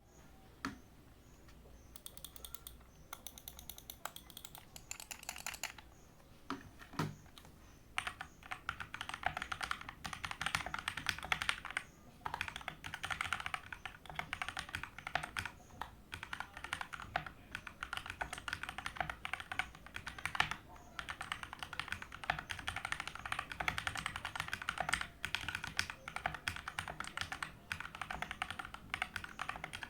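Modded Keychron K4 V2 mechanical keyboard being typed on. A few separate key presses come first, then from about eight seconds in a fast, steady clatter of keystrokes broken by short pauses.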